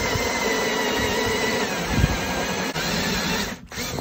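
Drill running under load, boring a hole through the top of a plastic portable fuel tank with a hole-cutting bit: a steady motor whine over the rasp of the bit cutting plastic. The drill stops near the end.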